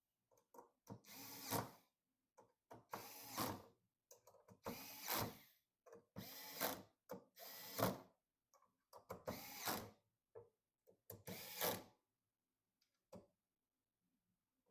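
A small mechanism ratcheting or whirring in six short bursts, each about a second long and roughly one and a half seconds apart, during hands-on PC assembly.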